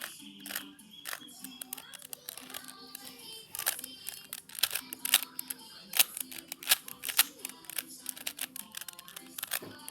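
A Rubik's cube being turned quickly, its layers giving off many sharp, irregular plastic clicks, with soft background music underneath.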